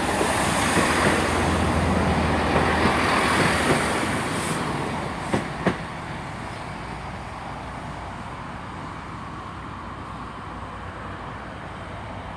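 Class 165 Turbo diesel multiple unit running in and slowing, its engine hum and wheel noise fading over the first five seconds. Two sharp clunks follow close together about five and a half seconds in, then a steady, quieter running sound.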